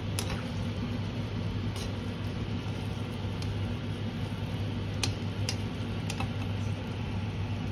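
Chicken wings and mushrooms frying in a nonstick wok over a steady low hum, with a faint hiss and a few sharp clicks of a slotted metal spatula against the pan.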